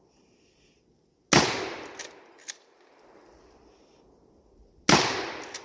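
Two shotgun blasts from a Smith & Wesson M&P 12 pump-action 12-gauge firing buckshot, about three and a half seconds apart, each dying away over a second or so. A couple of short sharp clicks come half a second apart after the first shot.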